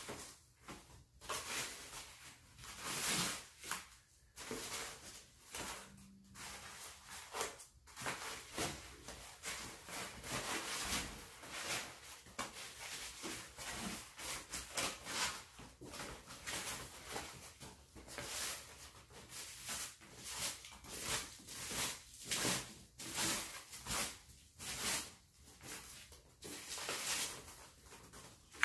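Foam packing wrap being unwound and pulled off a bicycle frame: rustling and crinkling in irregular bursts.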